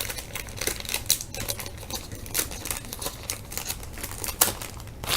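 A foil trading-card pack and its cards being handled: irregular sharp clicks and crinkles of wrapper and card stock.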